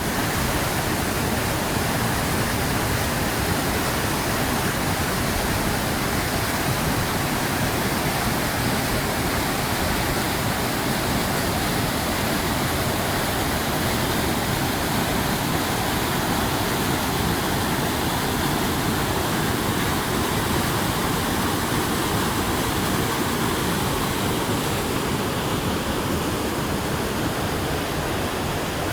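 Waterfall on the Middle Fork Snoqualmie River: a steady, loud rush of falling water with no breaks.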